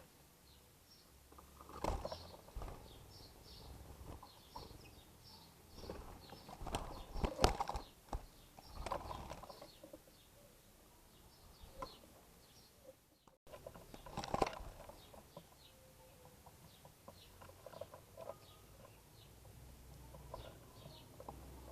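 Small birds feeding on cracked corn, with many short high chirps and scattered pecking and fluttering noises.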